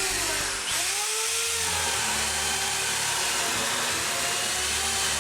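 A power tool running steadily: a loud, even whirring noise with a few faint pitch glides.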